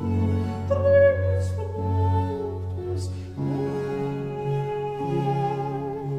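Slow, sad orchestral background music: sustained string chords over a held low bass note, the chords changing every second or two.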